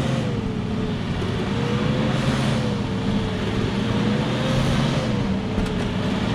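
Truck engine running under load, pulling the heavy truck camper on a tow strap across wet ground: a steady low drone with a thin whine that wavers slowly up and down.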